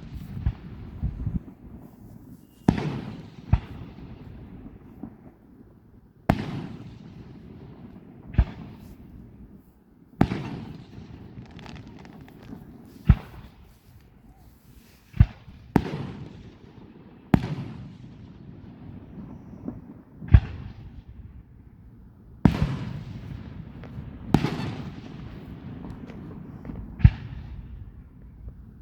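Fireworks bursting one after another, a sharp bang roughly every two seconds, each followed by a rumbling echo that dies away.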